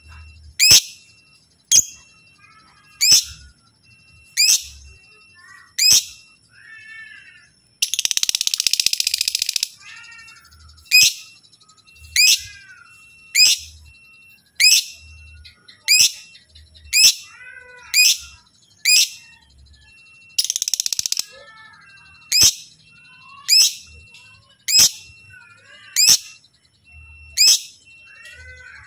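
Lovebird calling: sharp, rising shrill chirps about once a second with softer chattering notes between them, broken twice by a longer dense rasping trill, a two-second one about a third of the way in and a shorter one about two-thirds in.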